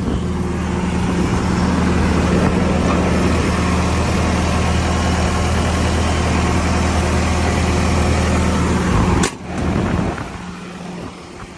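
Diesel engine of a John Deere 323E compact track loader running at a steady idle, then shut off about nine seconds in, with a sharp click just after it stops.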